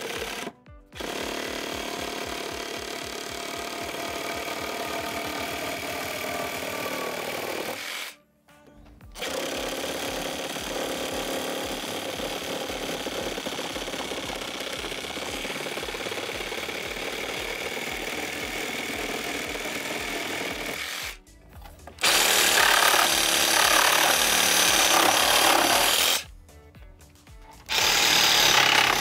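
Makita XRJ04Z 18-volt brushed-motor cordless reciprocating saw cutting wood: long steady runs with the blade stroking through a wooden post, stopping briefly three times. From about two-thirds of the way in the runs are louder, with the saw on a wooden pallet.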